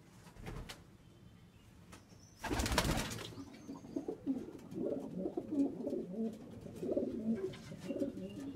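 Racing pigeons in a loft cooing, many short low coos overlapping from about three and a half seconds in. Just before that comes a single loud burst of noise lasting under a second.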